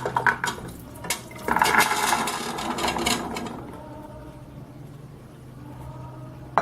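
A metal spoon clicks and scrapes against a pot. About a second and a half in comes a hissing sizzle lasting about two seconds, as soaked chickpeas are stirred into hot oil and seasoning, and it then settles to a softer sizzle.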